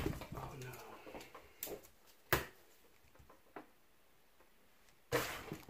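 A wrench knocking and clicking against a hydraulic pump's dump block as the dump valve is worked loose: a handful of sharp, separate metal knocks, the loudest a little past two seconds in and a longer clank near the end.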